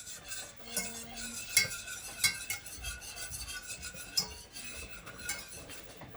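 A utensil stirring duck gravy in a pot, with irregular clinks and scrapes against the pot and a few louder clinks. This is gravy thickener being stirred into the duck drippings.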